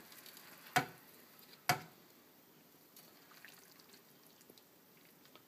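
Thick tomato sauce being poured from a metal skillet into a ceramic casserole dish, a faint pouring with a few small ticks. Two sharp knocks come about a second in and again a second later.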